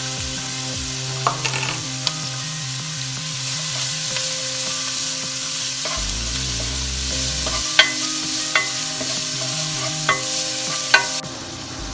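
Chopped onion and garlic sizzling in hot oil in a pan, stirred with a spatula that scrapes and taps the pan now and then. The sizzle drops lower near the end.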